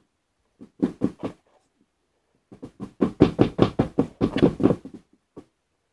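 Rapid knocking on a tabletop while hands work over jigsaw puzzle pieces: four knocks about a second in, then a fast run of about fifteen, roughly five a second.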